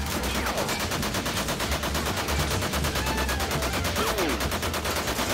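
Machine gun firing one long, rapid, even stream of shots, roughly a dozen a second.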